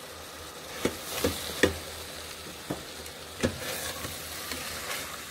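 Tomato, onion and pea mixture sautéing in a stainless steel Instant Pot inner pot with a steady sizzle, while a spoon stirs it, knocking and scraping sharply against the pot several times.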